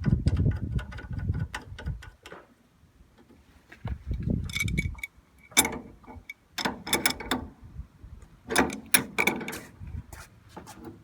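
Irregular clicking, rattling and low knocks of hand tools and metal parts being worked during air-conditioner installation. The sound stops for a moment between about two and four seconds in.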